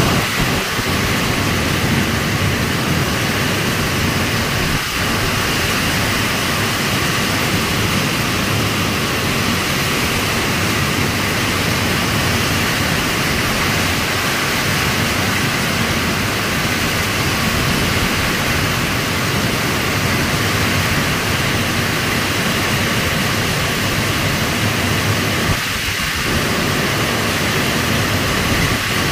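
Heavy rain pouring down steadily, a dense unbroken hiss.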